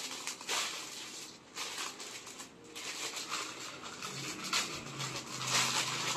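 Clear plastic garment packet crinkling and rustling as it is handled and opened, in irregular crackles that grow louder near the end.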